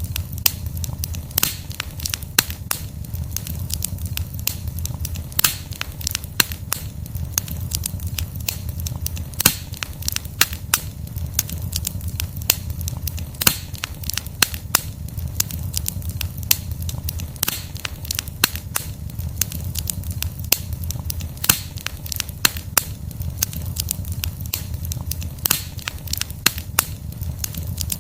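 Wood fire burning steadily: a continuous low rumble of flames with frequent sharp, irregular crackles and pops from the burning logs.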